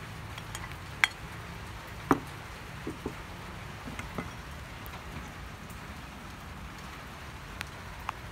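A spoon clicking and knocking against a ceramic plate and a stainless steel mixing bowl, a handful of short sharp knocks scattered through, the loudest about two seconds in, over a steady low background hiss.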